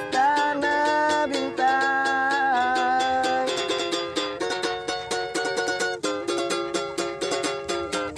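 Ukulele strummed in a steady rhythm as a song's accompaniment. For the first three seconds or so a held melody with sliding notes sounds above the strumming, then the strummed chords carry on alone.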